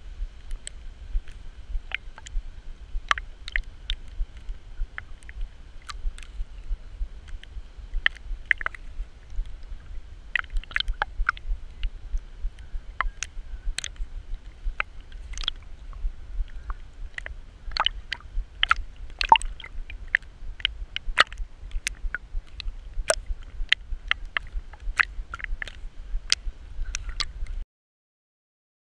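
Water sloshing and gurgling against a GoPro's waterproof housing as a dog swims, with a steady low rumble and frequent sharp clicks of water hitting the case. The sound cuts off abruptly near the end.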